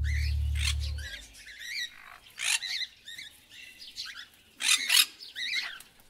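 High-pitched animal calls: short squawks and chirps in scattered bouts, loudest twice, about two and a half seconds and five seconds in.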